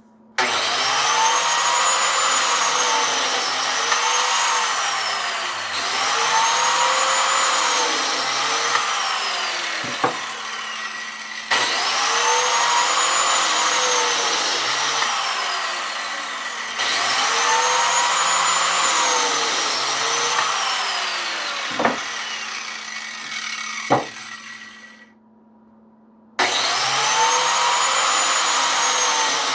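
Biscuit (plate) joiner running and cutting slots in wood, one cut after another, its whine rising and falling with each plunge. A few sharp knocks, and a short break near the end before it starts again.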